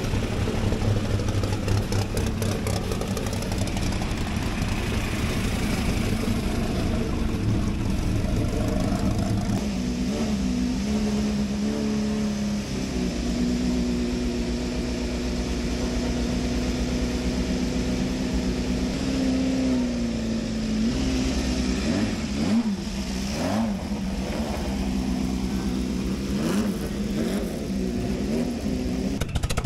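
Racing car engines running close by. For about the first ten seconds a vintage racing car's engine turns over slowly and steadily. Then a classic Team Lotus Formula 1 car's engine idles higher and is blipped several times near the end.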